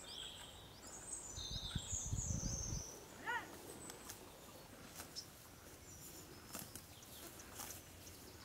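Quiet rural outdoor ambience with faint birds chirping: a few high chirps in the first second or so and a short pitched call about three seconds in, over a low rumble that fades out before the call.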